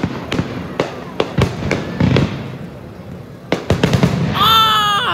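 Aerial firework shells bursting overhead in a quick series of sharp bangs and crackles. Near the end a loud, high, falling tone comes over them.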